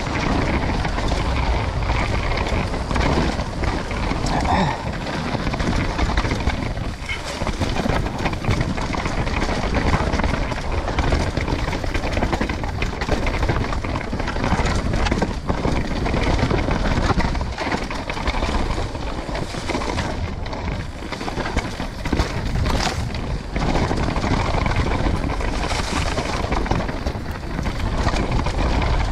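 Wind rushing over the camera microphone and tyres rumbling over dirt as a downhill mountain bike descends at speed, with many short knocks and rattles from the bike.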